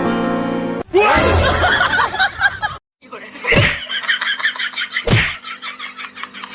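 Piano music that cuts off less than a second in, followed by a noisy clatter, a brief gap, and then two loud thumps about a second and a half apart over a steady hum.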